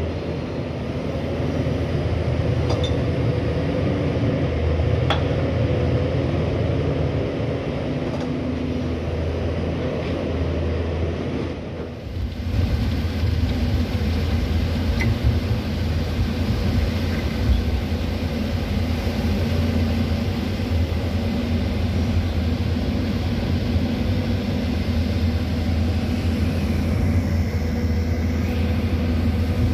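Hydraulic excavator's diesel engine running steadily as the machine works. The sound is heard from across the river at first, then, after a brief dip about twelve seconds in, from inside the operator's cab.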